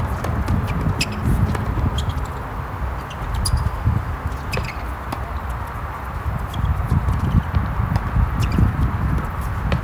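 Tennis balls struck by racquets in a doubles rally on a hard court: several sharp pops of volleys and groundstrokes, a second or two apart. Under them runs a fluctuating low rumble of wind on the microphone.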